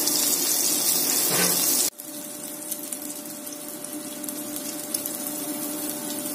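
Marinated chicken drumsticks sizzling as they shallow-fry in oil in a pan, a steady hiss. The sizzle drops abruptly to a quieter level about two seconds in and carries on with faint crackles.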